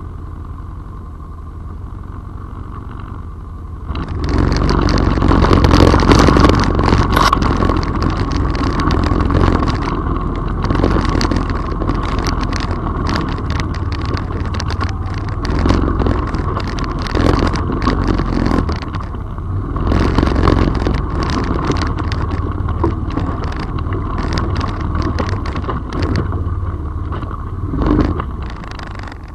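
Off-road vehicle engine running quietly at first, then louder and pulling harder from about four seconds in. Frequent rattles and knocks come from riding over a rough dirt trail.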